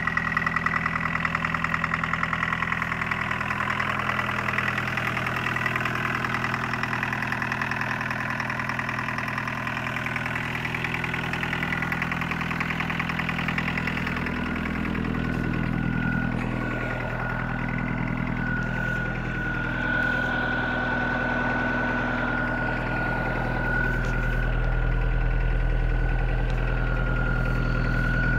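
1981 Volkswagen Rabbit pickup's 1.6-litre IDI turbo diesel idling steadily, with a steady high whine from its VNT15 turbocharger. The sound grows a little louder and deeper near the end.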